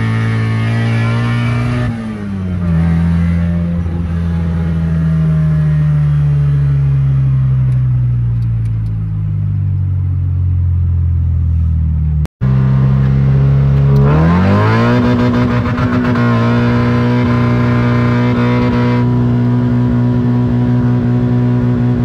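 A 1986 Toyota Corolla's engine and modified exhaust, heard from inside the cabin while driving. The engine note drops about two seconds in as the throttle is lifted and sinks slowly as the car slows. After an abrupt cut midway it revs up sharply and holds a steady, loud drone under acceleration.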